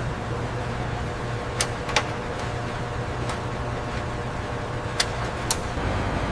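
Steady industrial machinery hum with a low drone, broken by four short sharp metallic clicks, two about a second and a half in and two near the end.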